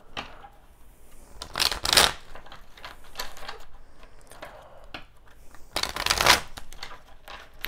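A deck of tarot cards being shuffled by hand: soft riffling and rustling, with two louder riffle shuffles, one about two seconds in and a louder one about six seconds in, where the deck is bent and bridged back together.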